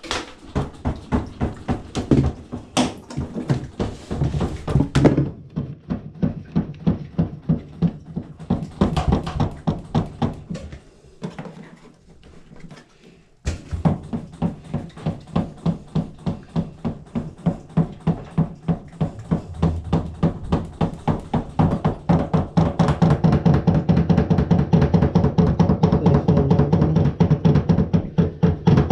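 Background music with a steady beat, briefly dropping away and coming back in about halfway through.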